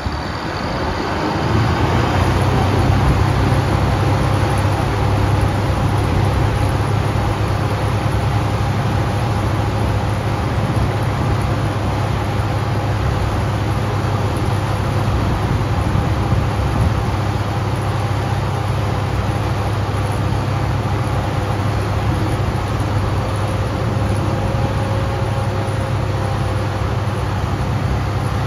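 Bizon Rekord Z058 combine harvester's diesel engine starting up, its sound rising over the first couple of seconds and then running steadily with a strong low hum.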